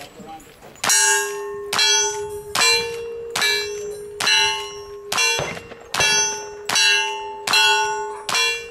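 A string of about ten gunshots at steady pace, roughly 0.8 s apart, each followed at once by the ringing clang of a hit steel target; the rings alternate between two pitches, from different steel plates.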